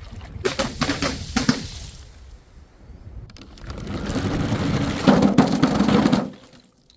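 Objects being smashed: a quick run of sharp breaking knocks, then a longer rough, noisy crash that builds up and cuts off abruptly.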